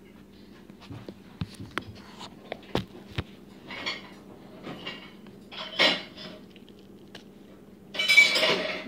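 Hands handling a clear plastic tub and a lump of slime: scattered sharp clicks and taps of the plastic container, with short squishy rustles as the slime is pulled and kneaded. The loudest burst comes near the end.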